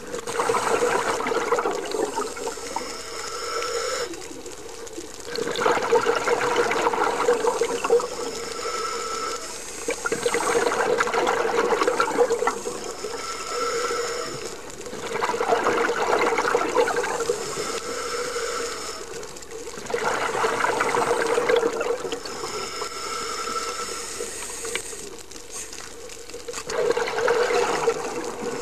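A scuba diver breathing through a regulator underwater. Exhaled air bubbles out in loud gurgling bursts about every five seconds, and a quieter whistling hiss of inhalation through the demand valve comes between them.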